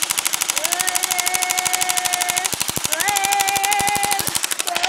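M4A1 carbine BB gun firing a rapid, continuous stream of shots. A voice holds a long yell over the shots, rising at the start, breaking off about halfway and starting again.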